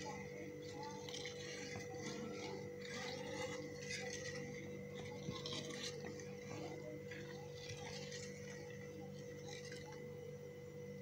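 Flat metal spatula stirring milk in a metal kadai: faint, scattered scrapes and clinks against the pan, over a steady faint hum. The milk is being stirred continuously as it heats so that it does not stick to the pan.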